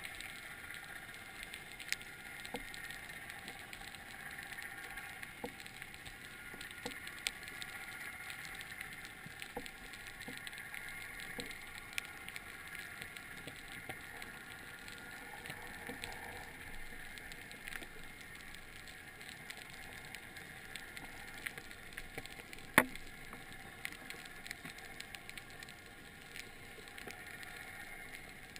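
Underwater ambience: a low, steady hiss with scattered small clicks and crackles, one sharper click about three-quarters of the way through.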